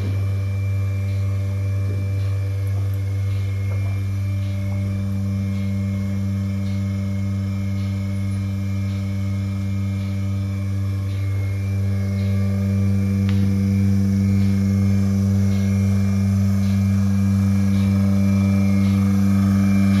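Bucket milking machine running: the vacuum system gives a steady low hum while the pulsators tick about once a second. The hum grows a little louder in the second half.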